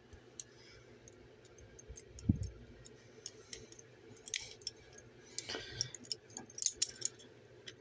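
Small metallic clicks and light rattles from a 1960 Hiatt steel handcuff being worked open while worn, with a dull knock about two seconds in.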